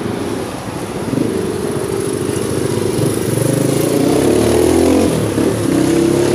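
A motorcycle engine passing on the street close by, growing louder over the first few seconds with its note shifting in pitch, over the steady noise of road traffic.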